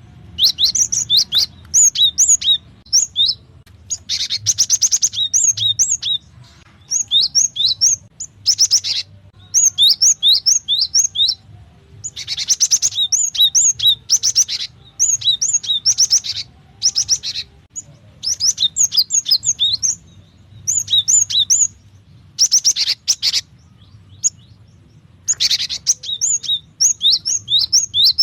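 Cinereous tit (gelatik batu) calling: repeated bursts of quick, high chirps every second or two, some bursts with a hissy, rasping edge.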